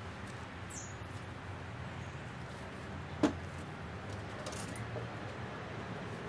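Garden ambience: a few scattered bird chirps over a steady low hum, with a single sharp tap about three seconds in.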